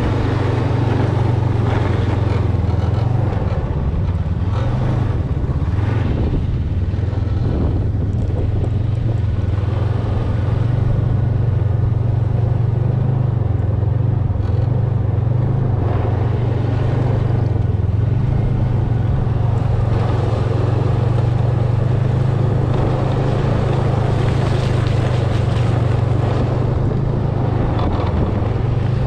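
Snowmobile engine running at a steady speed, a continuous low drone with no pauses or revving.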